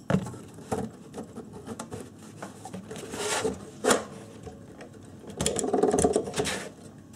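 Tools working on the metal casing of a disk-array storage unit during disassembly: scattered clicks, knocks and scrapes, then a power tool whirring for about a second near the end.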